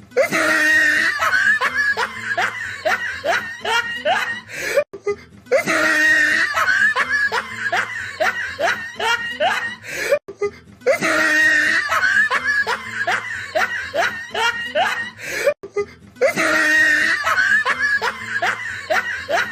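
Evil laugh sound effect played four times in a loop. Each laugh opens with a hoarse breath and runs into a quick string of short "ha"s, each rising in pitch, with a brief break before the next repeat.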